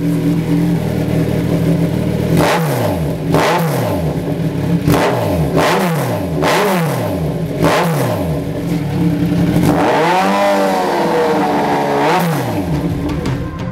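2016 Kawasaki Z1000's inline-four engine running through a Lextek MP4 aftermarket silencer. It idles steadily, then is blipped in a series of quick throttle stabs, each a short rise and fall in revs. About ten seconds in it is revved higher and held for a couple of seconds before dropping back to idle.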